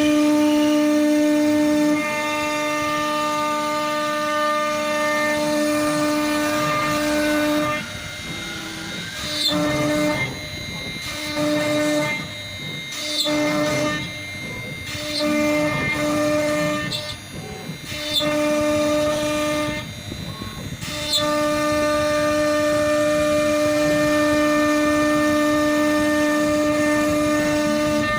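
CNC router spindle running with a steady high whine while cutting wood. From about 8 to 21 seconds in, the whine breaks off and returns several times, with rough cutting noise in the gaps.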